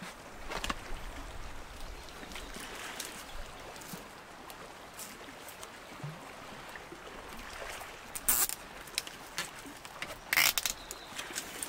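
Gentle lapping of seawater at the shore, with scattered light clicks and two brief, louder noisy bursts about eight and ten seconds in.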